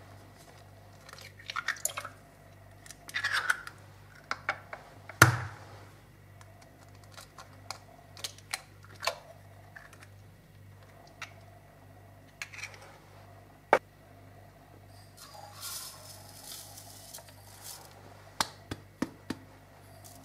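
Sharp clicks and knocks against a plastic blender beaker as eggs go in and are stirred with a utensil, the loudest in the first few seconds. About three quarters through comes a short rustling hiss of sugar being poured in.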